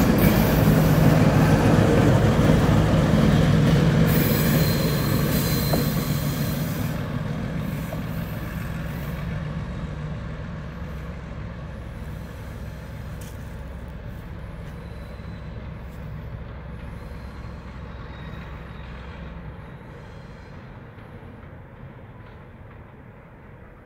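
Baltimore & Ohio SW1 switcher's six-cylinder EMD 567-C diesel engine running with wheel-on-rail rumble as the locomotive and its cars go past and draw away. The sound is loudest at first and fades steadily into the distance.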